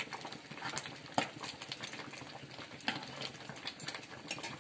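A pot of soft rice, lentil and vegetable porridge bubbling on a gas flame, with irregular small pops and clicks.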